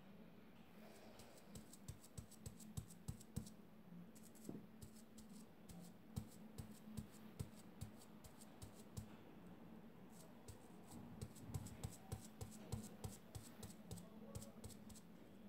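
Faint scratching and small clicks in three bursts as fingers work at the edge of a stencil sheet laid on painted fabric, over a low steady hum.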